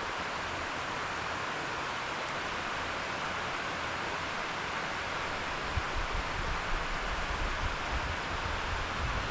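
Steady outdoor rushing hiss, with wind buffeting the microphone in low rumbles from about halfway through.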